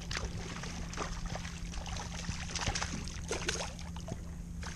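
A large hooked porgy (scup) splashing at the water's surface as it is played to the kayak: a string of irregular splashes.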